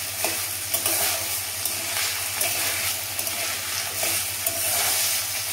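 Sliced carrots and green beans sizzling in hot oil in a kadai, stirred with a spatula, with light scrapes and taps against the pan.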